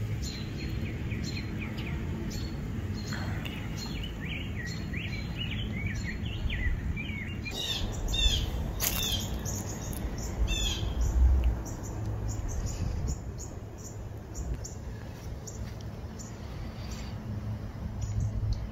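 Songbirds chirping, with runs of quick rising chirps in the first half and sharper calls after, over a steady low rumble that briefly grows louder about eleven seconds in.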